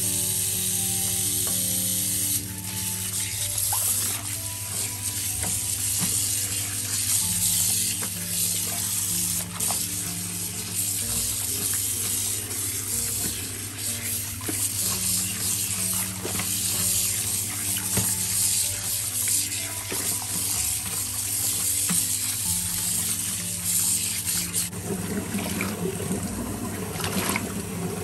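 Tap water running into a sink while a wool knit sweater is pressed and swished in it by hand, the splashing getting louder near the end. Background music with held notes plays under it.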